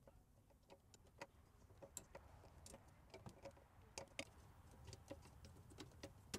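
Faint, irregular metallic clicks and ticks from a wrench working a brake line fitting loose on a brake master cylinder.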